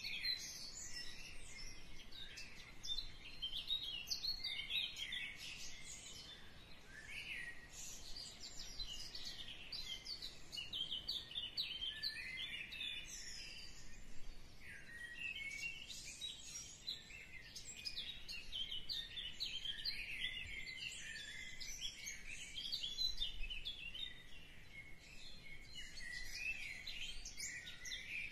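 Many small birds chirping at once, a dense, unbroken chorus of short high chirps and trills.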